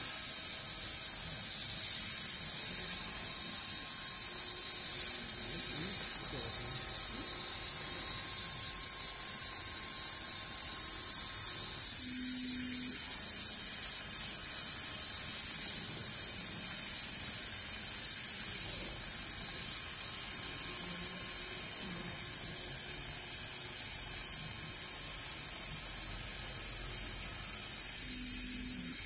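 Large-format automatic sewing machine running as it stitches leather, a steady high-pitched whine. It breaks briefly with a short low hum about twelve seconds in and again near the end.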